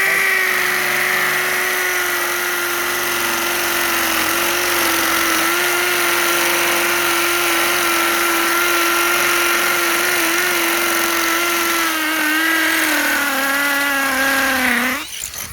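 Makita 18-volt cordless drill running steadily under load as a 12 mm tungsten-carbide-tipped multi-purpose bit bores into concrete-filled masonry block. The motor's steady whine sags slightly in pitch near the end, then stops suddenly.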